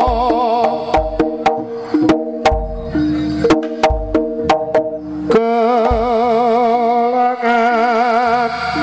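Live Javanese jaranan ensemble music: sharp drum strokes and low thuds about once a second under sustained pitched tones. From about five seconds in, a melody line with a wide vibrato comes in over them.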